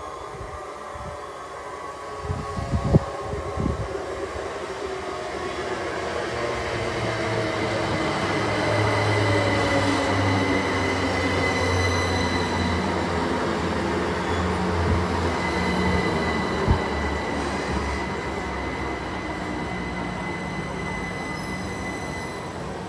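A train passing through the station: a rumble that builds over several seconds and slowly eases off, with a few sharp knocks about two to four seconds in and a thin, high, steady squeal from the wheels through the second half.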